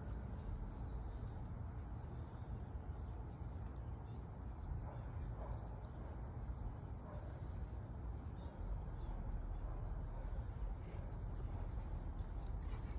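Outdoor ambience of insects trilling steadily at a high pitch over a low, constant rumble, with a few sharp clicks near the end.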